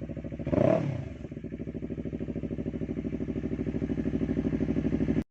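Yamaha R3 parallel-twin engine idling through an Akrapovic muffler with resonator during a cold start. It is blipped once briefly about half a second in, then settles back to a steady, evenly pulsing idle. The sound cuts off abruptly near the end.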